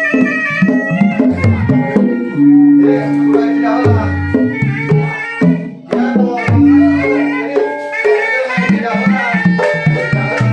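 Sundanese gamelan ensemble playing: hand-drum strokes in a busy rhythm over ringing bronze notes and held low tones.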